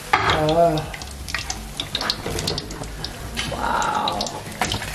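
Battered potato pieces deep-frying in hot oil in a karai, the oil sizzling steadily while a metal ladle lifts the pieces out, with scattered sharp clicks of the ladle against the pan.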